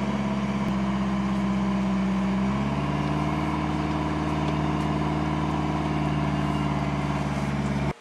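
Four-wheel-drive car's engine running as it drives across soft beach sand, heard from inside the cabin. Its note changes about two and a half seconds in, and the sound cuts off abruptly just before the end.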